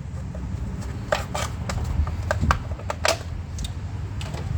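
Irregular sharp clicks and taps, about nine over a few seconds, as plastic caps and parts on top of a car engine are worked and popped loose by hand and tool, over a low steady hum.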